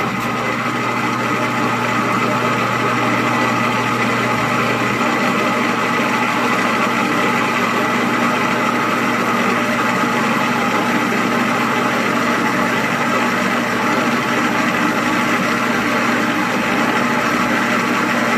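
Metal lathe running steadily, its spindle turning the workpiece while a drill in the tailstock is fed into the end. A low part of the hum drops out about five seconds in.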